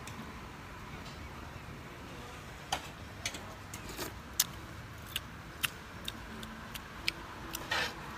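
Eating utensils clicking and clinking irregularly against dishes, about a dozen sharp clicks and a short scrape near the end, over a steady low background hum.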